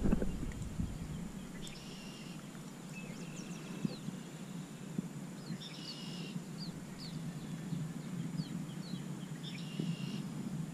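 Songbirds singing: a short phrase repeated every three to four seconds, with scattered quick high chirps between. A few faint clicks come from unhooking the fish.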